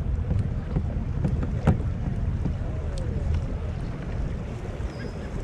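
Wind buffeting the microphone over water swishing along the hull of a pedal-driven kayak under way, with a single sharp click about a second and a half in.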